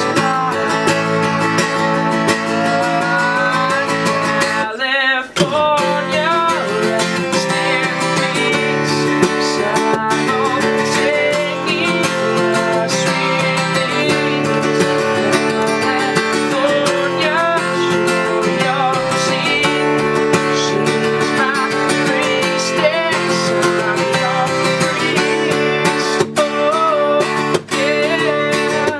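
Acoustic guitar strummed in chords while a man sings a song over it, with a short break in the playing about five seconds in.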